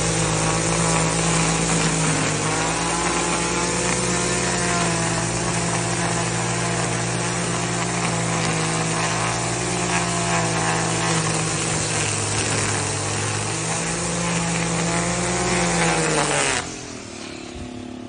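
Engine-powered string trimmer (weed eater) running steadily at high speed while edging a lawn, its line cutting grass along the border. Its pitch wavers slightly, and the sound drops away sharply near the end.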